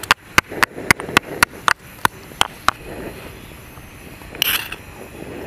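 Stone pestle pounding ginger in a stone mortar: about ten sharp knocks, roughly four a second, slowing and stopping a little under three seconds in. A short scrape follows about four and a half seconds in, as a metal spoon scoops the crushed ginger out of the mortar.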